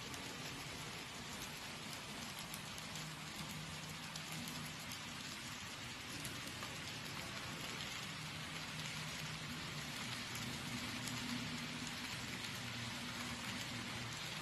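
Model trains rolling along the layout's tracks: a steady hiss of small metal wheels on rails with faint ticking, and a faint low hum that comes in after a couple of seconds and grows a little stronger near the end.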